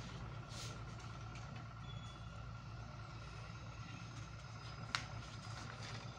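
Faint steady low hum with a single soft tick about five seconds in.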